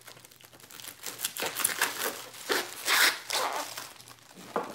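Plastic and paper packing wrap crinkling and tearing as a wrapped crystal is opened by hand. The crackles come irregularly and are loudest about three seconds in.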